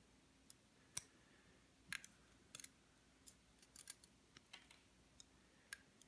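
Scattered faint small clicks of metal tweezers picking pin springs out of the chambers of a brass mortise lock cylinder, the sharpest about a second in.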